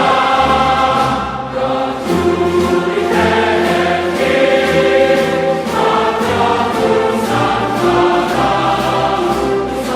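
Background music: a choir singing sustained chords over a steady beat.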